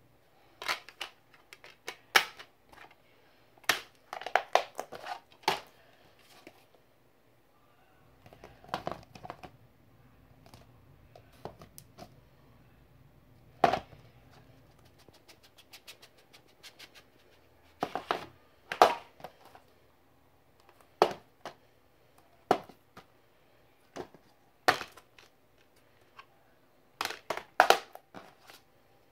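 Plastic DVD cases being handled on a wooden floor: irregular clicks, snaps and knocks in clusters as cases are opened, closed, set down and slid about.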